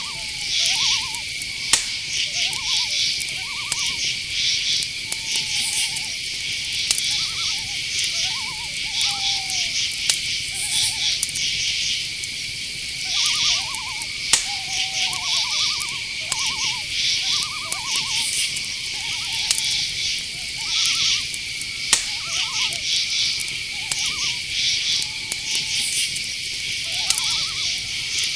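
Night forest chorus: crickets keep up a steady high trill while other insects chirp in pulses above it. Owls give short calls again and again, and there are a few sharp clicks.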